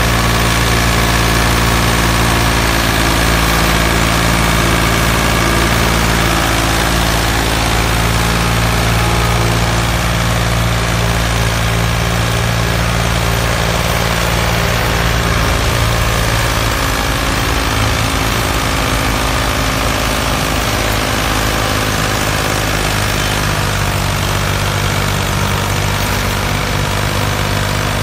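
An engine running steadily at idle, with a low, even hum; its pitch pattern shifts slightly a little past halfway through.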